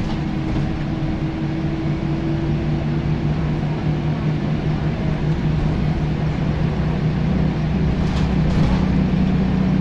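Scania L94UB bus's rear-mounted diesel engine working under load, heard from the back seat. Its note climbs slightly in pitch and gets a little louder in the second half as the bus pulls harder.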